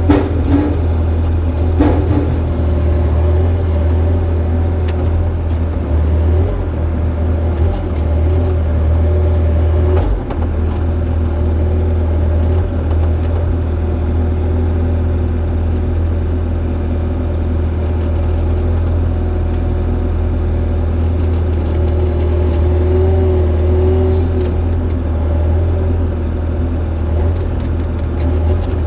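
Excavator's diesel engine running steadily under load as it works, with a few sharp knocks, one right at the start, one about two seconds in and one about ten seconds in.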